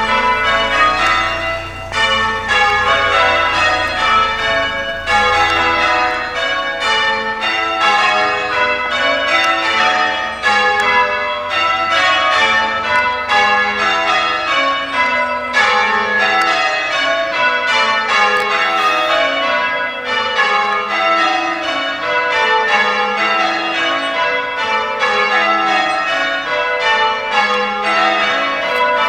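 Front six bells of an eight-bell church ring sounding in change ringing, struck one after another in quick, evenly spaced rows that fall in pitch, each row following straight on from the last.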